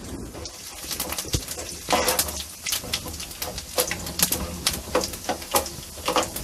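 Mustard seeds, cumin and dals sizzling and popping in hot oil in an aluminium kadai, with irregular sharp clicks throughout. A steel spoon scrapes and taps against the pan as the tempering is stirred.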